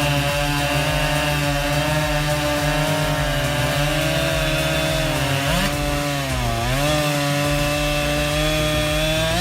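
Husqvarna chainsaw running at high revs, cutting wood. Its engine note sags about six seconds in as the chain loads up in the cut, then climbs back to full speed.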